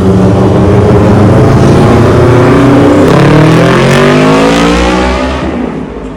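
Loud car engine accelerating, its pitch rising steadily, then fading away near the end.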